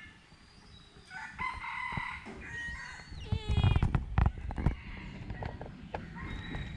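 Bird calls, the clearest a short call with a clear, ringing pitch about halfway in, over low thumps and rustling near the middle.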